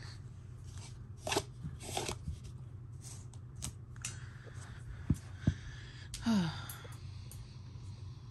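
Light clicks, taps and rustling from hands handling small acrylic tarantula enclosures and their lids, with two sharp knocks about five seconds in and a short falling squeak just after, over a steady low hum.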